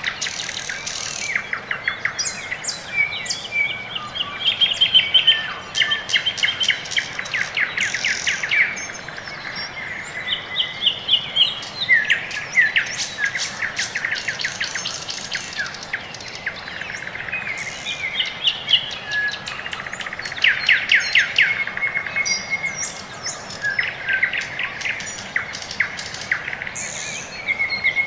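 Songbirds chirping and singing: rapid trills and short whistled phrases that follow one another without a break.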